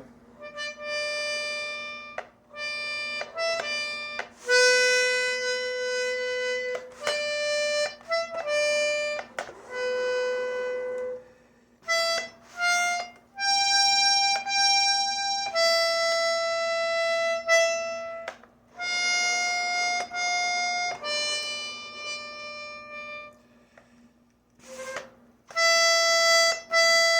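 A 1950s Italian accordion, some of its reeds removed, playing a slow, simple melody one note at a time, with short breaks between phrases. Its metal reeds give a reedy, harmonica-like tone.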